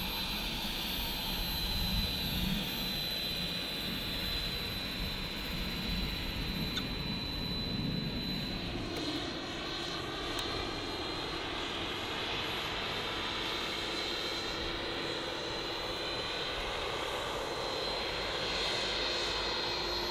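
Another model aircraft's engine running steadily nearby, a high whine over a broad drone.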